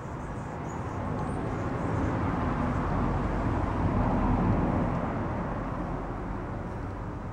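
A passing vehicle: a steady rushing noise that swells to a peak about four seconds in and then fades away.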